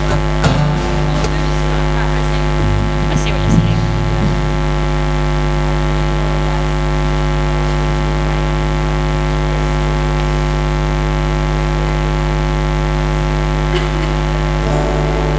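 Loud, steady electrical mains hum, a buzzing drone with many overtones that stays unchanged throughout, with a few faint clicks and knocks in the first few seconds.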